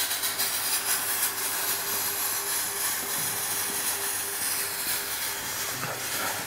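Steady hissing noise with a faint low hum underneath.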